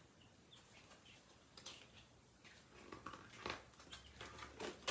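Faint, scattered short high peeps from downy baby chicks, with soft rustling and brushing sounds from handling them in the second half.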